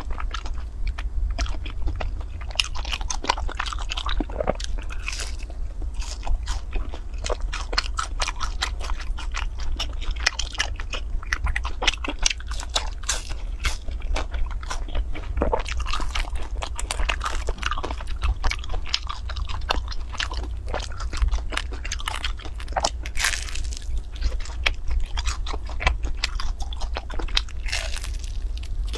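Close-miked mouth sounds of a woman biting and chewing soft flat cakes topped with powder and syrup: a dense, irregular run of small clicks and smacks, with a steady low hum underneath.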